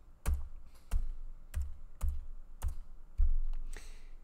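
Computer keyboard keys pressed one at a time: about seven separate keystrokes at uneven spacing, each a sharp click with a dull thump, as a number is typed into a spreadsheet cell. A short hiss comes near the end.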